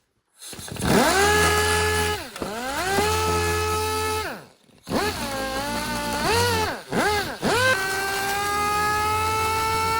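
Dual-action (DA) sander with an 80-grit disc sanding down a plastic-welded repair. It spins up just after the start with a whine that dips in pitch as it is pressed on, stops for a moment about halfway, starts again, dips a few more times, then runs steadily near the end.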